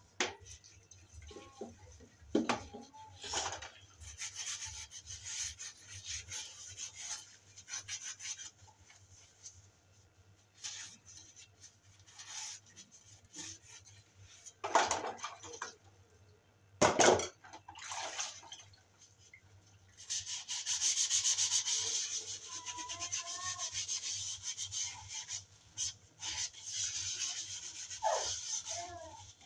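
Dishes washed by hand: a soapy sponge scrubbing a glass and other utensils in long stretches of rubbing, broken by a few sharp clinks and knocks of dishware, the loudest about halfway through.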